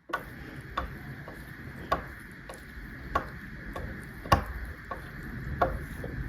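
Small toy truck parts being handled: light, irregular clicks and taps, about one a second, over a steady low background noise.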